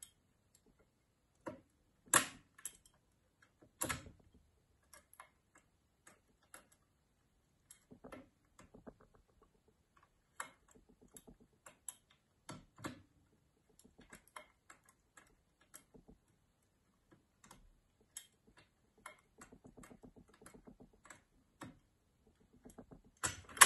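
Lever-lock picks working in the keyhole of a Mottura 52771 lever mortise lock: scattered, irregular metallic clicks and ticks as the levers are lifted and set. A few sharper clicks stand out, the loudest about two seconds in.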